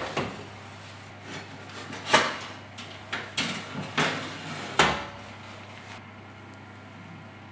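Oven door pulled open, then a run of sharp clunks and metallic clicks as a steel knife blade is lifted off the oven's wire rack, over a low steady hum.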